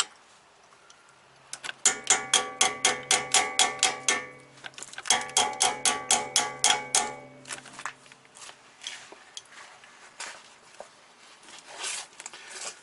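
Rapid metal-on-metal blows knocking a new dust cap onto a VW Mk2 GTI rear wheel hub, each blow ringing. There are two quick runs of about five blows a second, then a few lighter, scattered taps.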